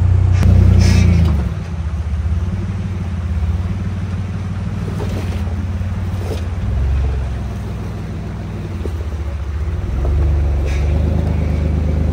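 A 4x4's engine running at crawling speed on a rocky trail, rising and falling with the throttle, with a few short knocks.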